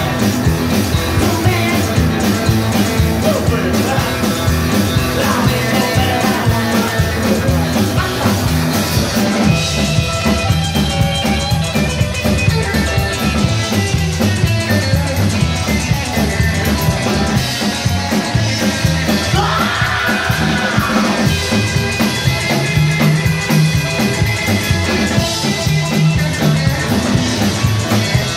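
Live rockabilly band playing: drum kit and electric guitar with a steady, driving beat.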